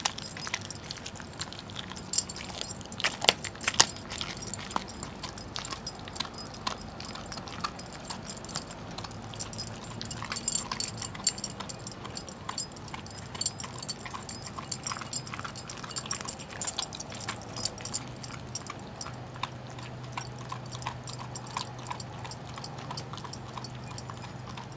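A greyhound gnawing and crunching a raw turkey leg: a steady run of sharp cracks and crackles, thickest in the first few seconds, with the metal tag on its collar jingling as it chews.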